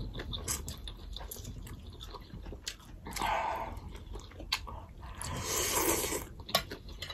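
Mouth sounds of eating noodle soup: wet chewing clicks throughout, with two hissing slurps of noodles, one about three seconds in and a longer one between five and six seconds.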